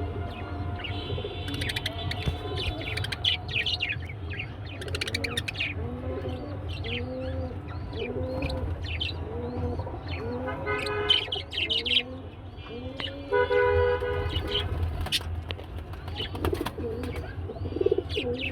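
Doves cooing, a run of low arched coos about one a second through the middle, among many short high chirps of small birds. A steady low hum runs underneath.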